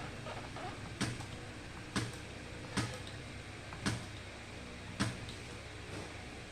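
Homemade two-transformer battery spot welder firing single weld pulses into 0.2 mm nickel strip: five sharp snaps about a second apart over a steady low transformer hum.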